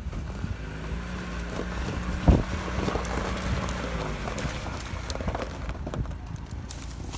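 Off-road 4x4's engine running at a steady pitch, with a single sharp thump a couple of seconds in. Wind noise on the microphone.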